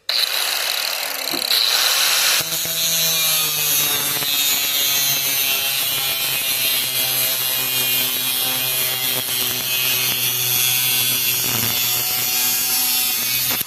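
Power cutoff wheel cutting through the metal handle socket of an old rake head: a loud hissing rasp that starts suddenly, with a steady high whine from the loaded motor joining after about two seconds, then cutting off abruptly at the end.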